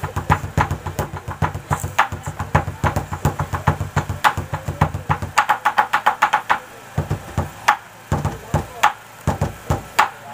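Rapid, rhythmic percussion: fast runs of knocking strikes, each with a low thud, several a second. It thins to sparser, spaced beats about seven seconds in.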